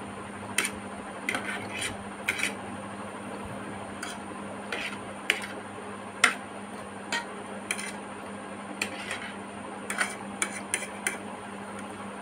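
Metal fork clicking and scraping on a ceramic plate while gathering instant noodles: about fifteen sharp, irregular clicks over a steady low hum.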